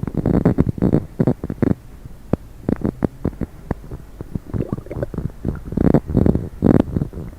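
Human stomach gurgling after coffee and Diet Coke: runs of quick gurgles and squelching pops, busiest in the first second and a half and again from about four and a half seconds to near the end, with quieter rumbling between.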